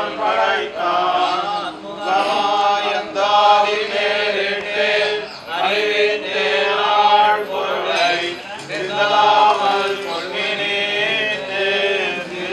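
A group of men chanting a Srivaishnava hymn in unison, phrase after phrase with short breaks between them.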